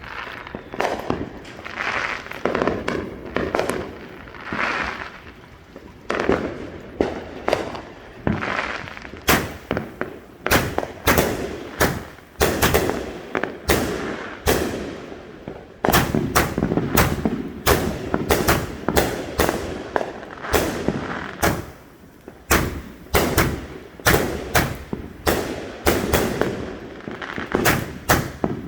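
Consumer fireworks going off in a long string of sharp bangs and cracks. They are sparser at first, then come rapidly, several a second, from about nine seconds in.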